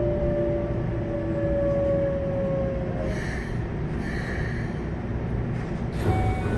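Keikyu 600 series train heard from inside the car: the Mitsubishi GTO-VVVF inverter and traction motors give two steady tones that slide slightly lower in pitch and fade out about halfway, over the constant rumble of wheels on rail. About six seconds in a sudden louder burst of running noise comes in with thin high squealing tones.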